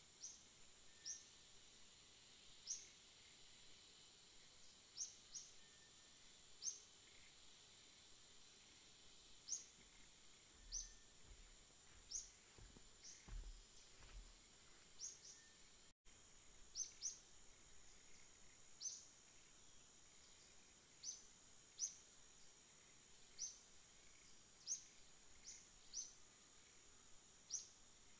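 Faint natural ambience: a steady high insect drone, with short high chirps repeating at uneven spacing about once a second.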